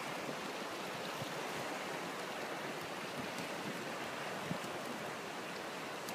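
Steady rushing of fast-moving water: a strong current pouring through the channel under a bridge.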